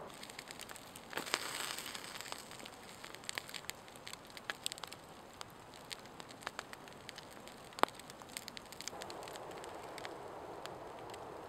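Wood campfire crackling under meat skewers, with scattered sharp pops, a short flurry of crackles about a second in and one loud pop near eight seconds.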